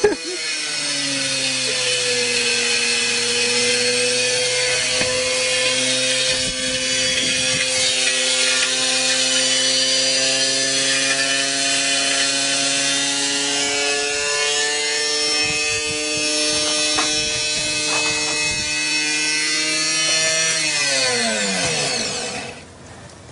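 Washing machine motor whining at high speed with a steady, slowly rising pitch and a few knocks partway through. Near the end it winds down, the pitch falling, and stops.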